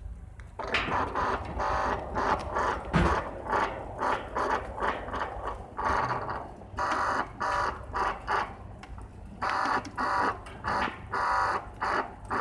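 Lentus automatic sliding-gate operator driving the gate along its toothed rack: a low steady hum under short squeaks repeating about twice a second.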